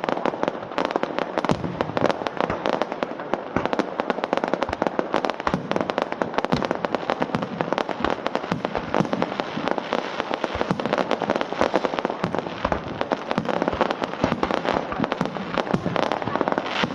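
Fireworks display going off without a break: many bursts per second in a continuous dense crackle.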